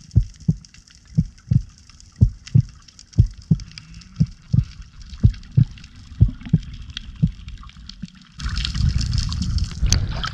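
Slow heartbeat, a double lub-dub thump about once a second, over faint underwater hiss. About eight and a half seconds in, loud rushing and splashing water as the camera breaks the surface.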